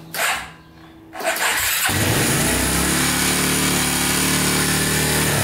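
Two short clicks, then the 1998 Arctic Cat 300's four-stroke single-cylinder engine cranking over on its electric starter for about four seconds, with the starter only working intermittently.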